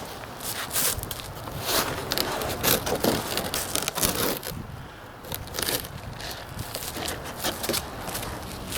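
Handling noise: irregular clicks, scrapes and crinkling rustles over a low rumble.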